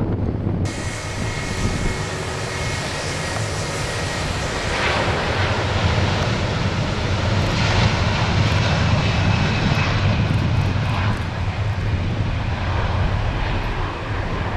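Airbus A330-343 with Rolls-Royce Trent 700 turbofans at takeoff thrust as it rolls, rotates and lifts off: a loud, steady jet roar that starts abruptly just under a second in, builds to its loudest around the middle as the airliner passes, then eases slightly as it climbs away.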